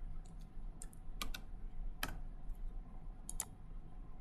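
Scattered light clicks of a computer keyboard and mouse, about ten in all, some in quick pairs.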